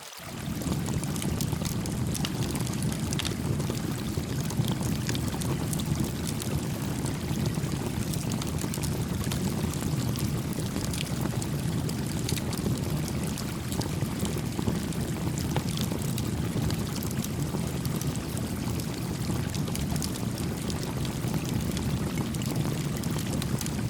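Small creek flowing steadily with a campfire crackling beside it: an even rush of water under scattered sharp crackles and pops from the burning wood. The sound drops out for an instant right at the start.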